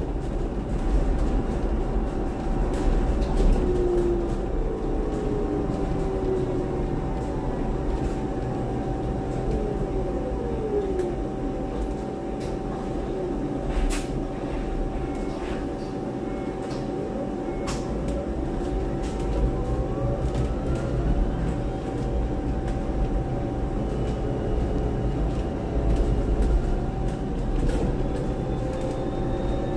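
Inside the upper deck of a Volvo BZL battery-electric double-decker bus on the move: steady road rumble with a constant whine, and the electric drive's whine gliding up and down as the bus speeds up and slows. Occasional sharp rattles and knocks from the body, one standing out about halfway through.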